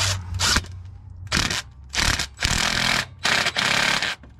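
A power wrench run in about six short bursts, snugging bolts up lightly.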